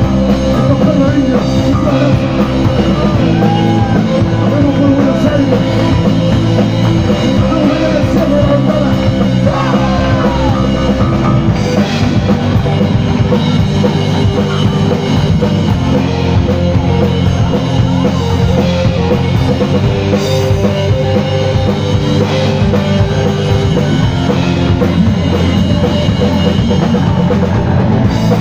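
Live rock band playing loud and without a break: electric guitar over a drum kit.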